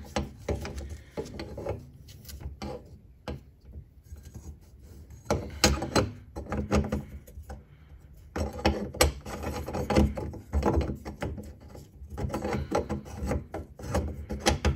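A locknut being spun by hand up the threaded body of a kitchen sink basket strainer: irregular rubbing and scraping of the nut on the threads, with scattered clicks, in several short spells of turning.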